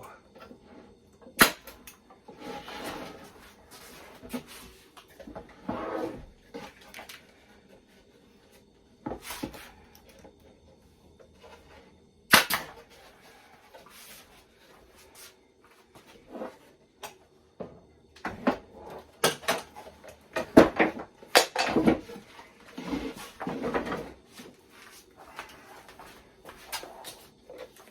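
Pneumatic staple gun firing 1-inch staples into half-inch plywood, a few sharp snaps with the loudest about twelve seconds in, among knocks and shuffling of the wooden box parts being handled and positioned.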